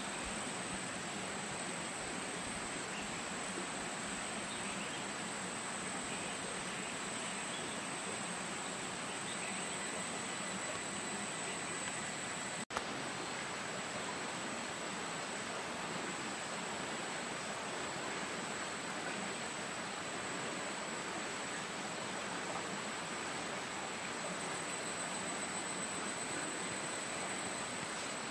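Steady forest background noise: an even hiss with a constant high-pitched whine on one note. About halfway through there is a single sharp click, and the sound cuts out for an instant.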